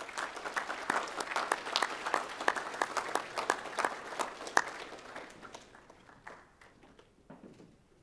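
Audience applauding, the claps thinning and dying away about six seconds in, with a few stray claps after.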